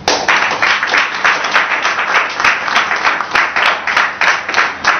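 Audience clapping in a steady rhythm, about three claps a second.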